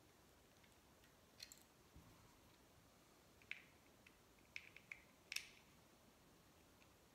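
Faint clicks and ticks of a small T6 Torx screwdriver working the tiny screws out of a plastic Jeep Wrangler JL key fob, about a dozen scattered through the middle of the stretch, the loudest about five seconds in. A soft thump comes about two seconds in.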